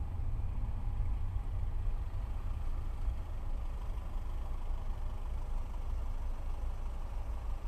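Car engine running, a steady low rumble heard from inside the cabin.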